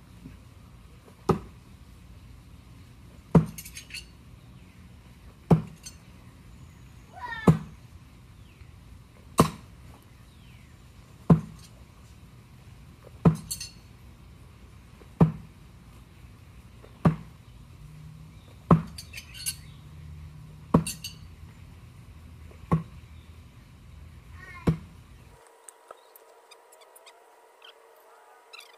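Throwing knives striking a wooden target board, one sharp thunk about every two seconds, thirteen in a row, some followed by a light metallic clink. The throws stop a few seconds before the end.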